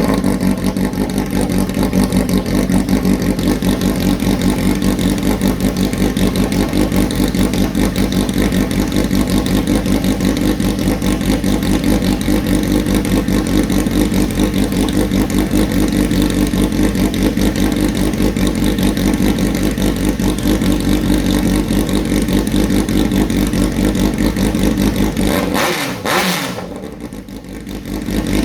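Built Honda CBR1100XX Blackbird inline-four engine just fired up, running steadily with an even pulse. Near the end the sound falls away for a couple of seconds, then comes back.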